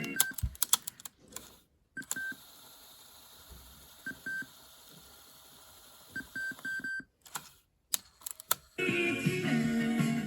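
Clicks, as of buttons being pressed, and short high beeps in three groups, the last a quick run of four. Music cuts off at the start and comes back near the end.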